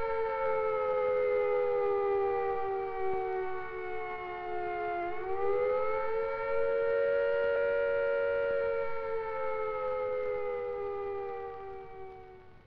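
Civil defence air-raid siren sounding the rising and falling wail of the attack warning, the signal that a nuclear attack is expected. Its pitch sinks slowly, swings back up about five seconds in, then sinks again and dies away near the end.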